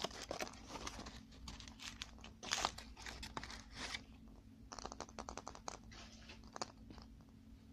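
Foil wrapper crinkling and tearing as it is peeled off a hollow chocolate ball. About five seconds in comes a quick run of light clicks, then it goes quiet.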